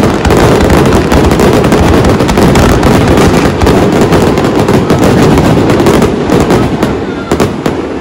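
Fireworks display, with ground-mounted fountains and aerial shells firing at once: a loud, dense, continuous crackle full of sharp pops. It eases off near the end into a few separate pops.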